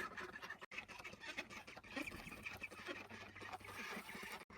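Faint clucking of domestic chickens, with scattered small clicks and knocks.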